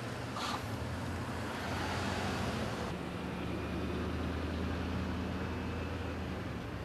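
Steady low mechanical hum of an engine or motor running, with outdoor background noise. There is a brief higher-pitched sound about half a second in.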